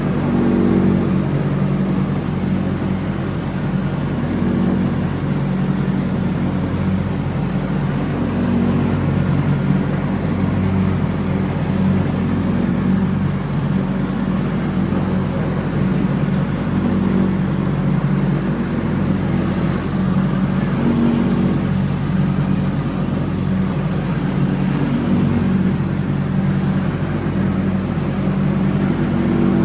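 John Deere X304 riding mower's engine running at a steady speed while mowing.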